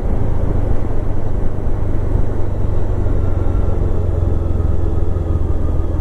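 Motorcycle under way at road speed: a steady low rumble of engine and wind noise.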